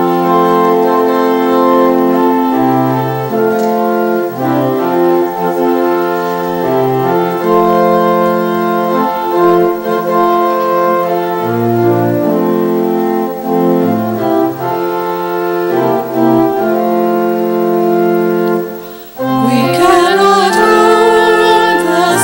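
Organ playing the introduction of a hymn in sustained chords. About nineteen seconds in it pauses briefly, then resumes as voices begin singing the first verse with it.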